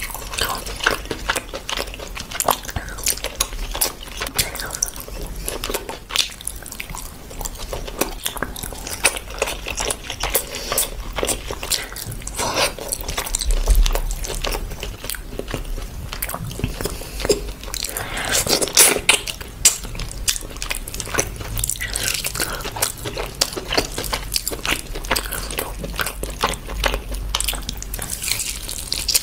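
A person eating rice, curry and meat by hand: chewing and biting, with a steady stream of small clicks and crackles as the fingers mix gravy into the rice.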